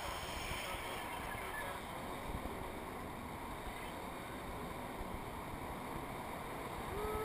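Steady rush of wind over a GoPro camera's microphone in tandem paraglider flight.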